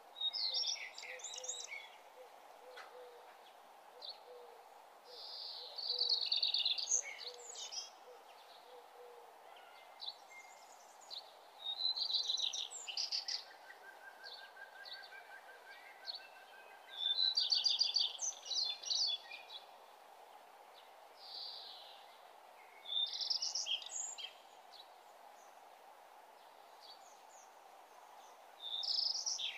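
A songbird singing short phrases of rapid high-pitched notes, repeated about every five to six seconds over a steady faint hiss.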